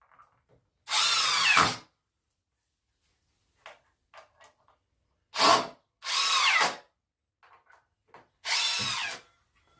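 Power drill running in four short bursts of under a second each, its pitch sliding down during the bursts, with light knocks in between.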